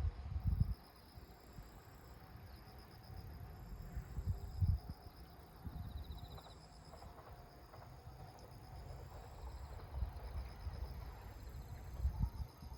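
Several insects singing steady, finely pulsed high-pitched trills that overlap and repeat. A low rumble comes and goes underneath.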